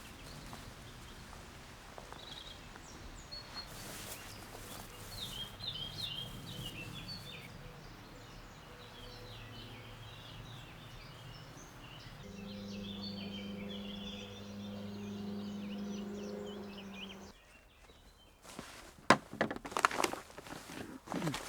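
Birds chirping and singing in short phrases, with a steady low hum for several seconds partway through. Near the end come a run of sharp rustles and knocks, the loudest sounds here.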